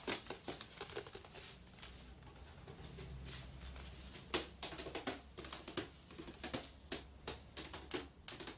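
Irregular light taps and clicks, sparse at first and several a second in the second half, over a faint low hum.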